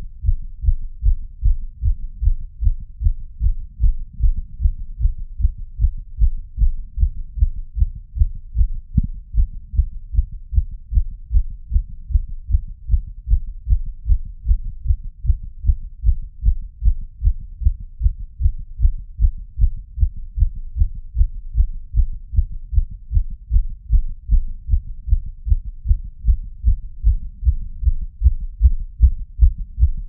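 A fast heartbeat heard through a Stemoscope digital stethoscope: deep, regular thumps at about 150 beats a minute, a racing, pounding heart. There is one brief click about nine seconds in.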